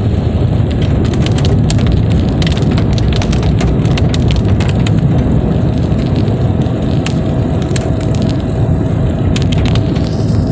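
Raindrops hitting a moving car's windshield and roof in sharp, irregular ticks, heard from inside the cabin over the steady low rumble of the engine and tyres on the wet road. The hits come thickly for the first few seconds, then thin out.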